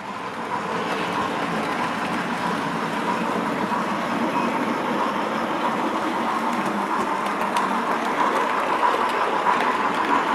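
Train-Tech steam locomotive sound capsule playing recorded steam engine running sounds through its small battery-powered speaker, heard as a steady, even noise, with the model train running on the track.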